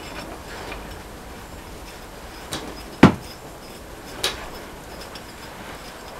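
Steel parts knocking and clinking as flywheel bolts and a locking washer are fitted to the crankshaft flange: three sharp metallic knocks, the middle one about three seconds in the loudest and briefly ringing.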